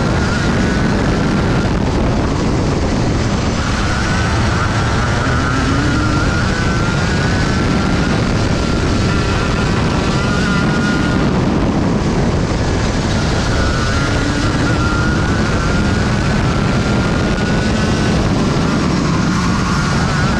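Junior Rotax 125cc two-stroke kart engine at racing speed, heard from on board the kart. Its pitch climbs several times as the kart accelerates and drops back each time it slows for a corner.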